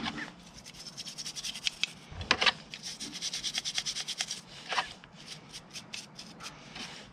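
A small brush scrubbing a motorbike brake caliper part: quick scratchy rubbing strokes, several a second, coming in runs, with one louder knock about two seconds in.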